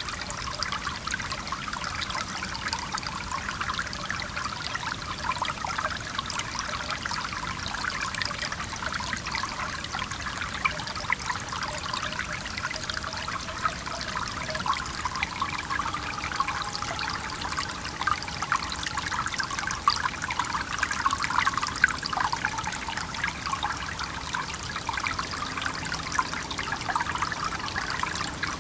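A stream trickling and babbling steadily, the water sound even and unbroken.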